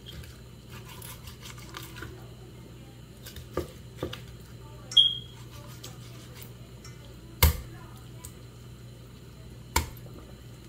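Chef's knife cutting raw chicken on a thick round wooden chopping block: soft cutting sounds and several sharp chops of the blade striking the board, the two loudest in the second half. A brief metallic ring near the middle.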